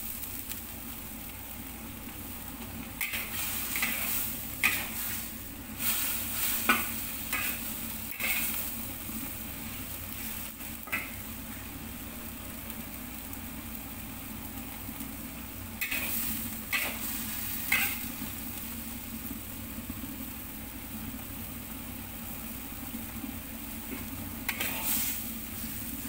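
A metal spatula scrapes and clacks against a wok in several short bouts of stirring. Under it runs a steady hiss of vegetables cooking at the boil in a little seasoned water, which is there to soften them.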